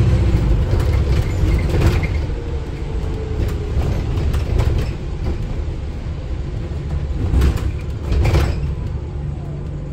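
Running noise inside an Alexander Dennis Enviro400H MMC hybrid double-decker bus: a steady low drivetrain rumble with a faint whine that falls in pitch over the first few seconds. A few body rattles and knocks break in along the way.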